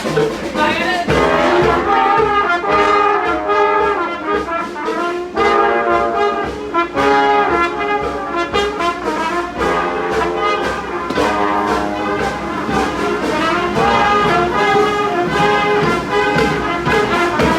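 Brass street band playing a tune together, trumpets and trombones sounding in harmony.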